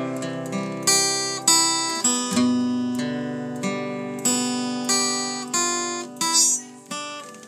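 Taylor W14 acoustic guitar playing a slow instrumental piece: single picked notes, each ringing out, over long-held bass notes.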